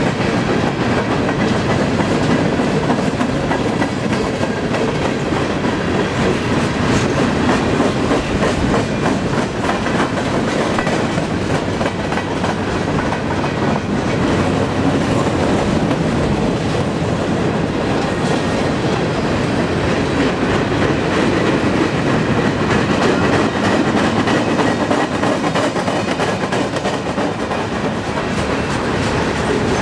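Freight train cars rolling past slowly: a steady rumble of steel wheels on rail with dense clicking as the wheels cross rail joints.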